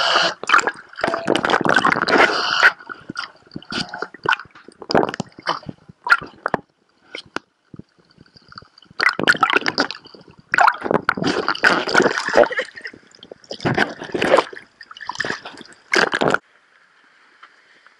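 Water splashing and sloshing against a waterproof camera at and just below the surface, in irregular bursts with short gaps. It stops abruptly near the end, leaving a faint steady hiss.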